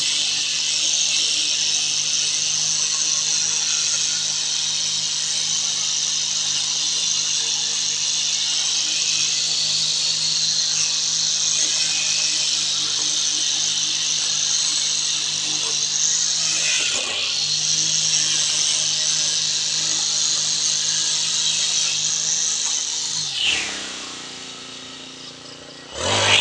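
Petrol brush cutter running at high throttle as its trimmer head cuts grass, a steady high whine over the engine note. The revs dip briefly about two-thirds of the way through. Near the end the engine is let down toward idle for a couple of seconds, then revved sharply back up.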